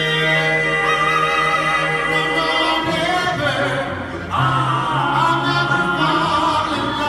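Five-voice vocal group singing live in close harmony, the voices holding long notes over a steady low note. The sound dips briefly about four seconds in, then a new phrase starts on a new chord.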